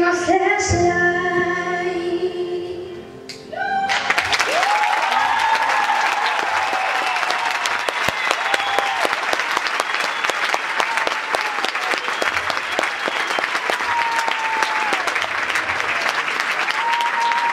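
A song ends on held notes from singers and a keyboard. About three and a half seconds in, an audience bursts into applause with cheering and whoops that carries on.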